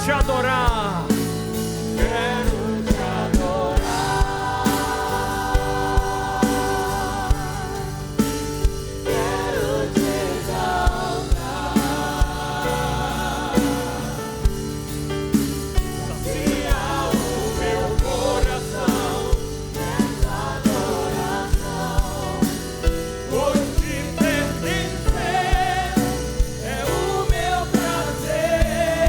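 Slow Christian worship song: voices singing with vibrato over a band, with a steady beat.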